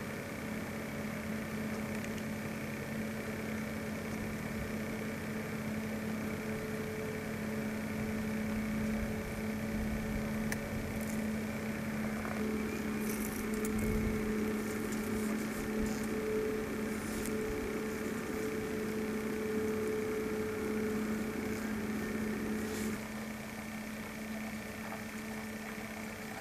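A steady low mechanical hum with a constant hiss. A second, higher hum note grows stronger about halfway through and drops away near the end.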